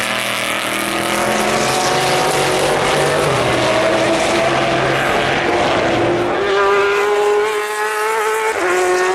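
Race car engine at full throttle, its pitch climbing steadily as it accelerates. About eight and a half seconds in, the pitch drops sharply at an upshift and starts climbing again, over a steady rush of other cars and tyre noise.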